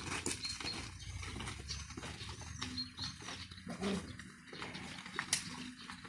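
Footsteps and cattle hooves crunching on a gravel lane as a small herd is driven along, with small birds chirping in short high calls.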